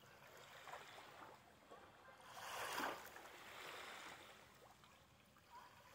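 Faint lapping of small waves on a sandy lake shore, with one louder wash of water swelling and falling away about halfway through.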